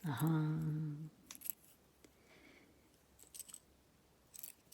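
A short drawn-out vocal sound lasting about a second, then scattered light clicks and clinks of small metal tools being handled and set down.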